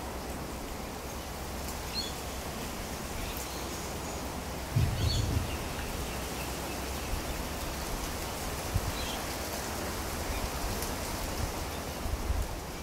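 Outdoor ambience: a steady hiss of breeze through leaves, with a few low rumbles of wind on the microphone, the strongest about five seconds in, and a few faint, short bird chirps.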